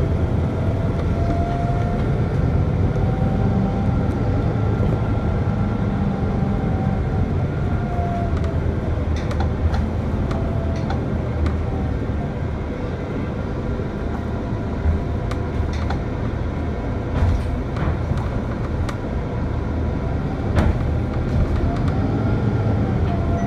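Inside a MAN NL 283 A23 articulated city bus under way: the diesel engine and drivetrain run with a steady low rumble, and a faint whine rises and falls with the bus's speed. A few short clicks or rattles come through now and then.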